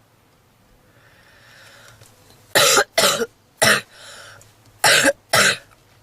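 A woman's harsh smoker's cough: a breath in, then five coughs in two bursts, three and then two. In the uploader's view it is typical of smoker's bronchitis.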